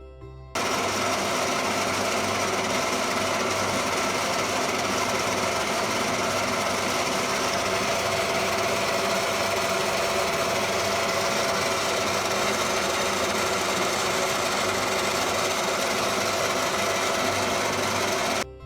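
A power tool working on the metal of a plough's turning axle, running steadily; the sound starts suddenly about half a second in and cuts off near the end.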